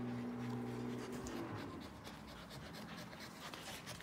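Dogs' paws scratching and scrabbling at a fabric cushion on a leather couch during puppy play: a run of faint, soft scratches. A steady low hum stops about a second in.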